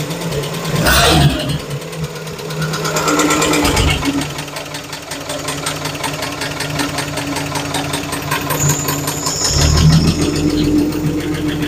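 1956 Chevrolet 150's engine idling steadily, with a short sharp noise about a second in and the low rumble growing louder near the end.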